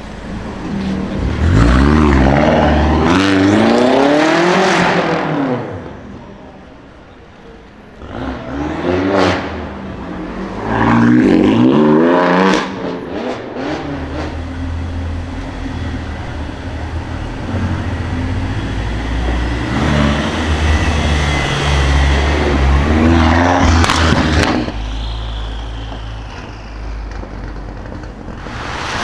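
Tuned BMW X6M's twin-turbo V8 through an Akrapovic exhaust, accelerating hard in three loud bursts with the revs climbing each time. It then runs at a steadier low rumble, with one more brief rise in revs near the end.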